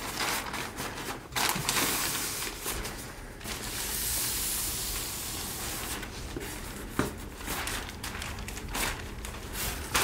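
Plastic sheeting rustling and crinkling as it is handled and pressed flat against a wall, with irregular sharp crackles.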